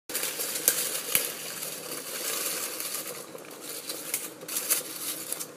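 Gum leaves rustling and crinkling as a hand presses them into a pot, with scattered crisp clicks.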